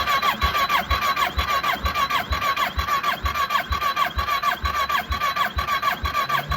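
Kawasaki ER-6's parallel-twin engine cranked on its electric starter without firing, during a compression test with a gauge screwed into a spark plug hole. The starter whines steadily, dipping in pitch with a low thump about twice a second as the cylinder comes up on compression.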